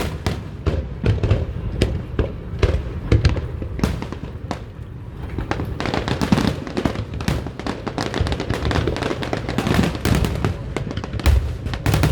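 Fireworks display: a rapid, unbroken string of bangs and crackles with low booms underneath, densest in the second half.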